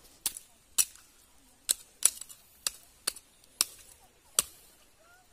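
A run of sharp, short clicks, about nine in five seconds at uneven spacing.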